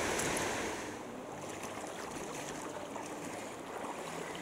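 Running water of a shallow rocky creek, louder for the first second and then quieter, with light splashing of legs wading through shallow water.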